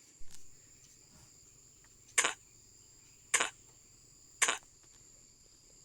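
A person repeatedly saying the voiceless /k/ consonant on its own: three short, sharp puffs about a second apart. A steady high-pitched cricket trill runs underneath.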